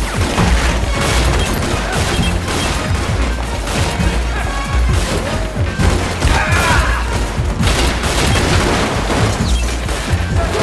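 Movie shootout soundtrack: rapid gunfire and crashing impacts over a loud music score with a repeating bass line.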